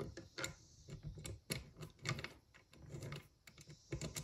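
Light, irregular metallic clicks and taps, several a second, from fingers working a bolt and T-nut into the slot of the CNC's aluminium extrusion rail and handling the gantry against it.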